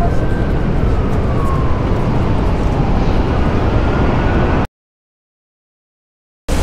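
Loud wind buffeting the microphone on an open high observation deck, with a faint tone that falls and then rises again in pitch. About four and a half seconds in, the sound cuts out to dead silence for about two seconds, then the wind noise returns.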